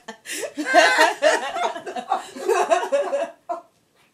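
A woman laughing with excited, wordless exclamations in quick bursts, stopping about three and a half seconds in.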